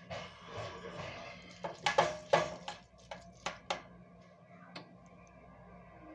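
A utensil scraping through cooked rice and knocking against a stainless steel pan. There is a cluster of sharp clinks and scrapes about two seconds in, a few more around three and a half seconds, and one last knock near five seconds.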